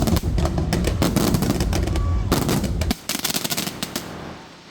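Fireworks going off in rapid crackling salvos, densest just after two seconds in, over a low rumble that cuts off about three seconds in; the crackling then thins out and fades.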